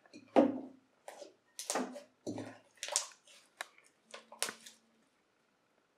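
Freshly activated clear glue slime being squeezed and pulled out of a plastic bowl, making a string of short wet squelches and crackly pops that stop about a second before the end.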